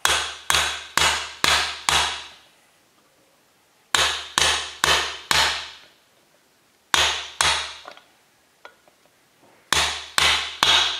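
Hammer tapping a socket used as a driver to seat the second bearing in a Kawasaki 15F jet pump housing: moderate hits in bursts of two to five, about two a second, with short pauses between, until the bearing bottoms out.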